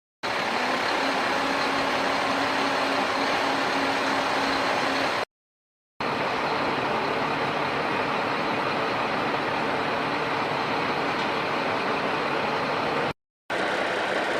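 A small motor running steadily with a whirring mechanical noise, cut off abruptly twice.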